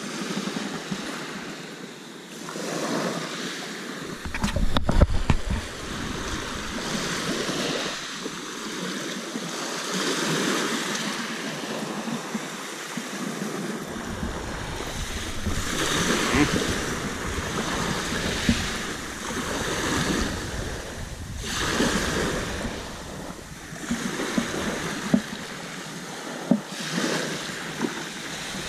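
Small waves washing up a pebble beach, the surf swelling and drawing back every few seconds, with gusts of wind buffeting the microphone at times.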